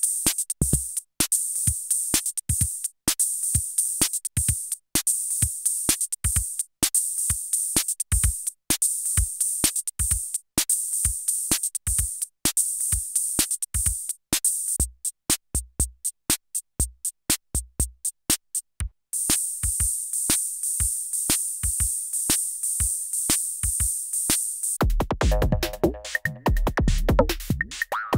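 Roland TR-6S drum machine playing a factory pattern on CR-78-style sounds: an even groove of kick and other drum hits over a steady hi-hat. The hi-hats drop out for a few seconds midway, and about three seconds before the end it switches to a different pattern with deep bass and pitched notes.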